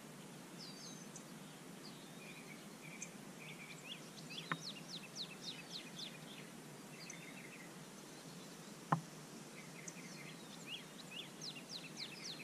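Birds singing: runs of quick, high, downward-sweeping chirps over a steady low hiss of outdoor noise. Two sharp clicks stand out, one about four and a half seconds in and another about nine seconds in.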